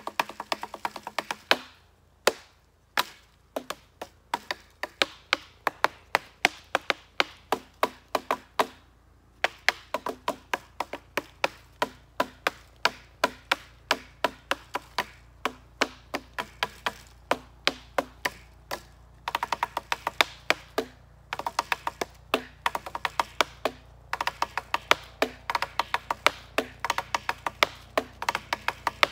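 Sticks drummed on fallen logs and branches: fast rhythmic runs of sharp wooden knocks, broken by a few short pauses between phrases.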